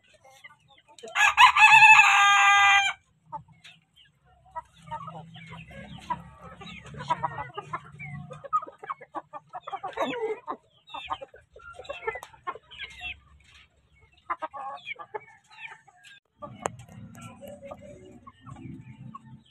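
Basilan native chicken rooster crowing once, about a second in, a single crow lasting about two seconds. Hens then cluck with short scattered calls.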